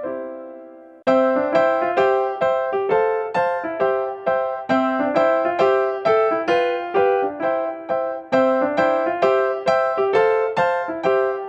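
Background music: a piano playing a steady run of notes, about three a second. The sound dies away at first, and a new phrase starts about a second in.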